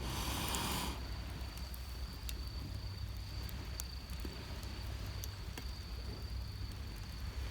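Wood campfire crackling with scattered sharp pops over a steady high insect trill and a low steady rumble. A brief rushing noise comes in the first second.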